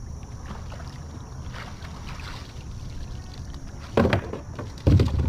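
Steady wind and water noise, then two loud sudden thumps or splashes about four and five seconds in, from working a cast net for mullet.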